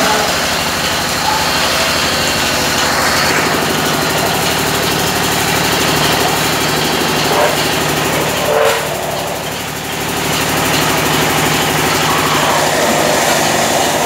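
Metal-spinning lathes shaping aluminium sheet into buckets: a loud, steady machine hum with a hiss over it. The sound changes a few seconds in, and dips briefly about two-thirds of the way through.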